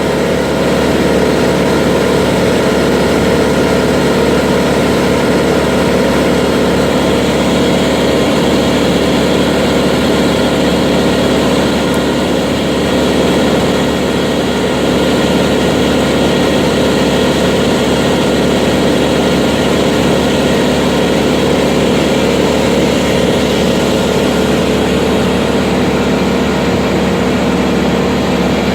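A heavy engine running steadily at a constant speed, with no change in load.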